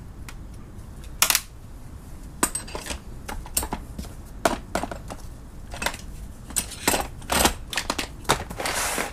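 Loose steel Allen keys clinking and clattering as they are handled and sorted, with a dozen or so irregular sharp clicks and knocks and a short scraping rasp near the end.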